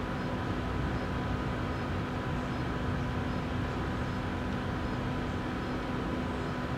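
Steady electrical hum with an even hiss underneath, unchanging throughout, with no distinct knocks or clicks.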